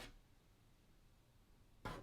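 Near silence for most of the time, then near the end a sharp knock on a door, the first of a new series of knocks.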